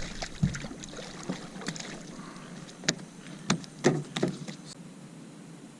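Several sharp knocks and taps against a kayak hull, with a few seconds between some of them, as a hooked redfish is handled at the boat's side.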